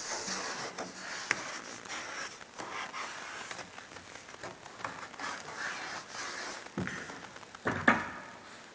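Scattered light knocks, scrapes and rustles of handling, with two louder knocks near the end.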